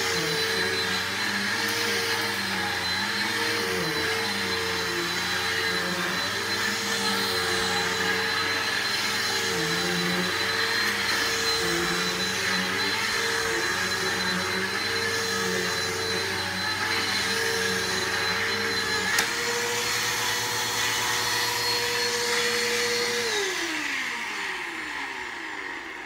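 Bissell PowerForce Helix upright vacuum cleaner running on a rug, a steady whining hum with the rush of suction. One short click about two-thirds of the way through. Near the end its whine falls in pitch and fades as the motor winds down.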